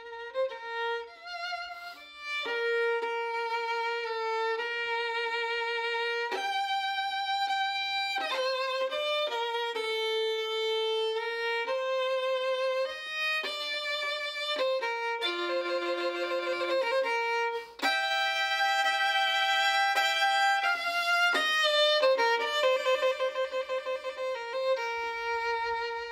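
Solo violin playing a slow melody, its notes held with vibrato.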